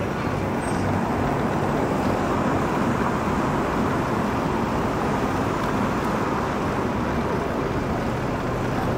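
Steady traffic and road noise from passing vehicles on a city street.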